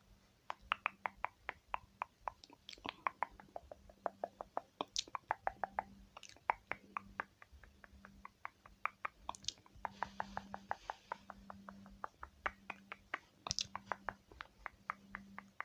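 Rapid, crisp fingertip tapping and patting, several light clicks a second with short pauses, as eyeshadow is picked up and applied by finger instead of brush.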